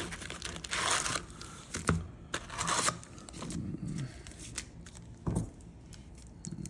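Foil-wrapped trading card packs crinkling and rustling as they are pulled out of a cardboard hobby box and stacked on a table. The rustle comes in two louder bursts, about a second in and again around two and a half seconds, with a few light knocks.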